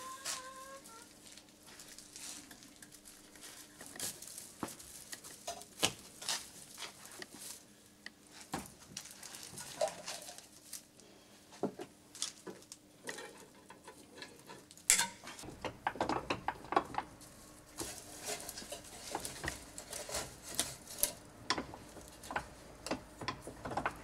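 Dry brushwood twigs rustling and crackling while a broom bundle is handled and bound, with scattered sharp clicks and ticks that come thicker and louder in the second half.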